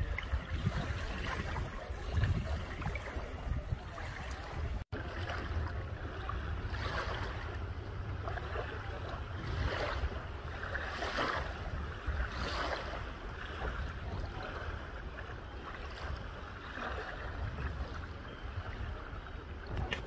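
Small bay waves lapping and washing over a coarse sand beach, one soft wash after another, with wind rumbling on the microphone. The sound cuts out for an instant about five seconds in.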